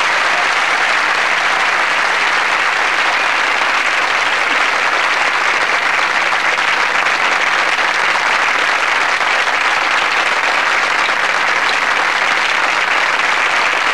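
Sitcom studio audience applauding steadily: a dense, unbroken wash of clapping at the episode's close.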